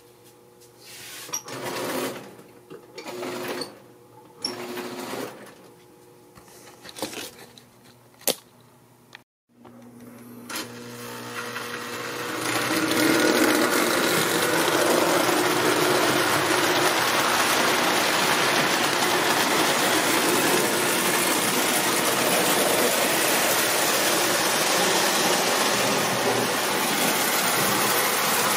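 Marx tinplate toy steam locomotive and its freight cars running on the layout track, freshly repaired: a steady, even mechanical whirring and clatter of motor and wheels that builds in about twelve seconds in and holds to the end. Before it come several seconds of scattered, uneven short sounds and clicks, then a brief silence.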